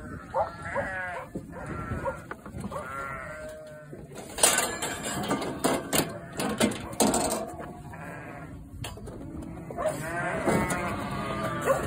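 Ewes and lambs bleating repeatedly in a crowded race, with a stretch of knocking and rattling of the race and gates in the middle as the sheep move through.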